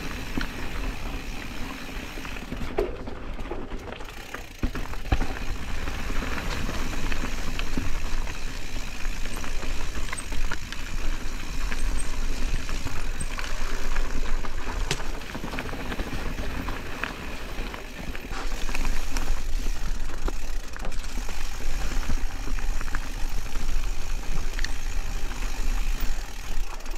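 Specialized Status 140 mountain bike being ridden down a dirt singletrack: tyres rolling over dirt and roots with many small rattles and knocks from the bike, getting louder about five seconds in, with a low wind rumble on the microphone.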